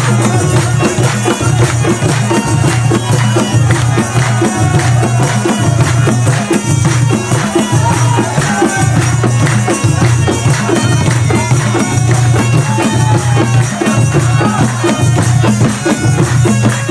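Background music with a steady, pulsing low beat and a melody line over it.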